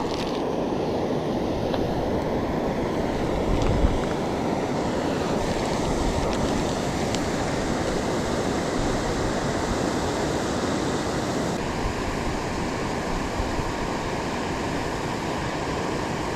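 Steady rushing of river water tumbling over a waterfall and rapids, an even noise that does not change.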